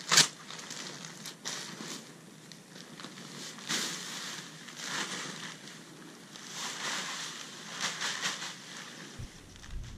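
Plastic bag of cow compost manure crinkling as it is lifted and tipped, with the compost sliding out onto the bed in several rushes. The sharpest crinkle comes right at the start.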